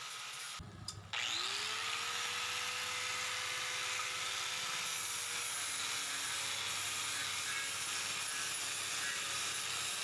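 Handheld angle grinder with an abrasive disc, starting up about a second in, its whine rising and then holding steady, then running with the disc rubbing on steel tube. It is grinding dried filler putty over the welds flat before priming.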